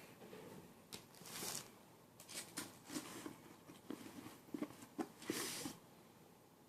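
Faint rustling and a series of light clicks and knocks as product packaging and bottles are handled and moved about.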